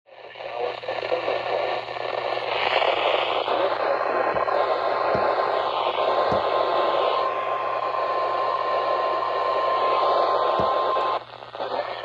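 Weather radio receiving a hissy, static-laden broadcast, with its steady single-pitch alert tone (the 1050 Hz warning alarm) sounding from about four seconds in for some seven seconds and cutting off suddenly near the end. The tone heralds a special marine warning.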